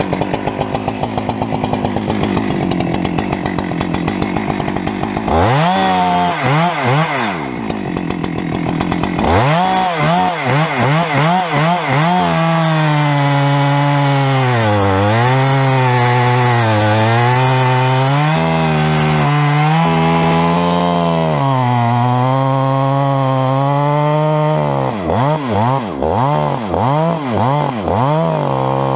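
Chainsaw running loud: revved up and down in quick throttle blips, then held at high speed for a long stretch with the pitch sagging and recovering as it cuts wood, then blipped again several times near the end.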